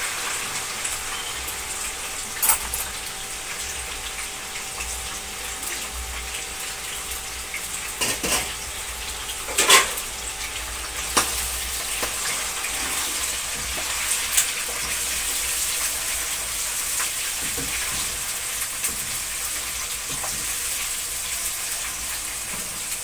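Beef liver frying in hot oil in a pan: a steady sizzle, with a few sharp knocks of utensils against the pan, the loudest about ten seconds in.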